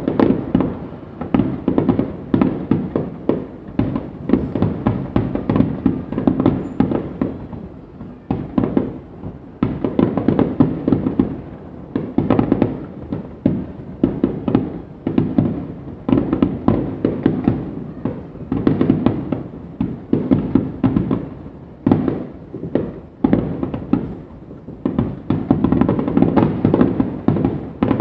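Aerial firework shells bursting in a rapid barrage, many bangs a second with crackling, swelling and easing in waves.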